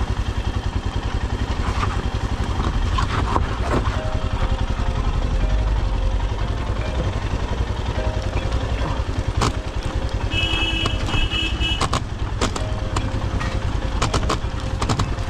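Royal Enfield 411 cc single-cylinder motorcycle engine running steadily on the move, with a few sharp knocks and a short high beeping a little after ten seconds in.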